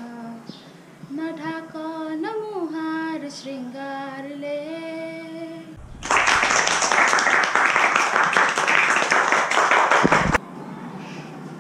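A girl singing a short melody alone, without accompaniment, then a group of students clapping for about four seconds before the sound cuts off abruptly.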